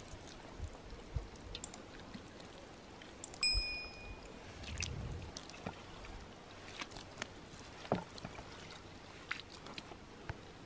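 Soft, scattered handling sounds of a raw whole turkey being rubbed with a cut orange: wet squishes and light taps. A brief ringing clink comes about three and a half seconds in.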